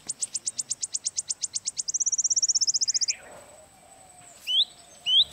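Wild outdoor chorus: a fast run of high, even chirps that speeds up about two seconds in and stops a second later. A faint steady high insect hum follows, then two short rising bird whistles near the end.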